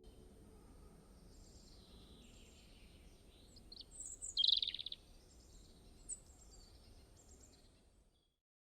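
Faint outdoor ambience with birds chirping, one louder burst of calls about halfway through; the sound stops abruptly near the end.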